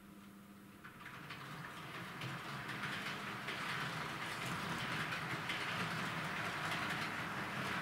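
Model train running along track laid on cork, a steady whirr of its motor and wheels on the rails, growing louder over the first few seconds as it comes toward the camera. The track has cork under it but no ballast yet.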